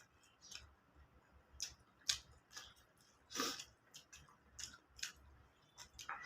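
Close-up eating sounds: chewing and wet mouth smacks of soft food. They come as a dozen or so short, irregular clicks, the loudest about two seconds and three and a half seconds in.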